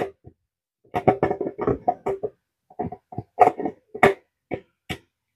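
Hamilton Beach blender jar and blade assembly clicking and knocking as they are handled and the blade assembly is worked into the jar's base opening: a dozen or so short, irregular taps, the loudest right at the start.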